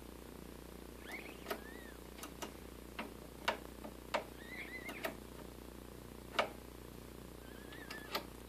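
Sharp, separate clicks of the Pioneer PL-630 turntable's front-panel pushbuttons being pressed, about a dozen spread unevenly through. A small bird chirps briefly in the background three times, a short warbling call each time.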